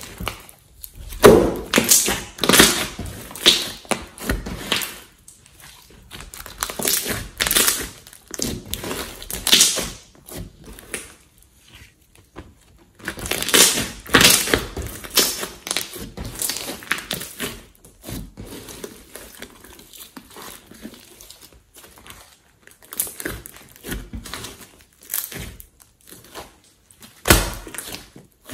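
Glossy slime being kneaded, pressed flat and stretched by hand: irregular wet squishing and clicking in uneven bursts with short pauses, the loudest about a second in and near the end.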